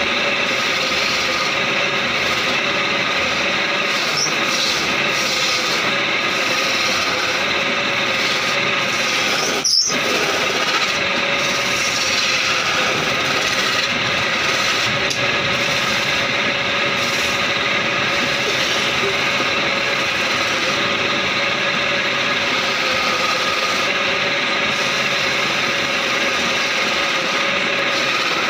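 Wood lathe running steadily while a hand chisel cuts into the spinning wooden blank, a continuous scraping whine of tool on wood. A brief click about ten seconds in.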